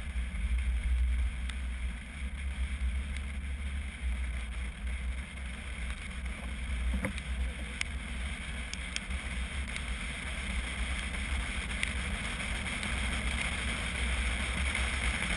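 Wind buffeting a roof-mounted action camera on a moving vehicle: a steady low rumble with road hiss, and a few light ticks.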